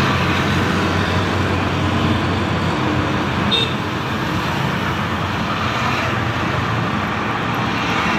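Passing road traffic: auto-rickshaws, motorcycles and cars driving by, a steady mix of engine and tyre noise. A brief high chirp about three and a half seconds in.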